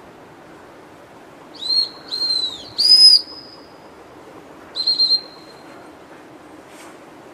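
A handler's gundog whistle giving commands to a retriever in the field. Three short blasts come in quick succession about a second and a half in, then one more fluttering blast about five seconds in.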